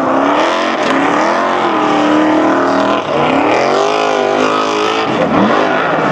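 Formula Offroad hillclimb buggy's engine revving hard at full throttle up a steep gravel slope, its pitch rising and falling again and again as the throttle works, with a brief dip about three seconds in.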